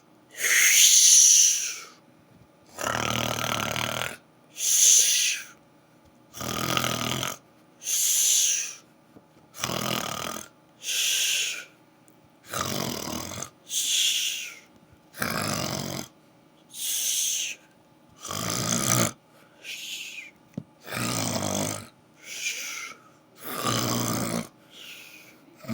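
A sleeping person snoring in a steady rhythm. Low snores alternate with airy, hissing breaths, about one breath cycle every two and a half to three seconds, eight snores in all.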